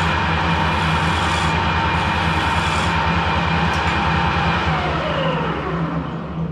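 Harrison metalworking lathe running at speed, a steady drone of motor and gearing. A little past four seconds in it is switched off, and its pitch falls as the chuck spins down.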